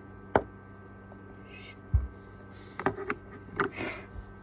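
Close handling noises over a steady low hum: a sharp click a third of a second in, a low bump about two seconds in, then a cluster of clicks and short rustles and another low bump near the end.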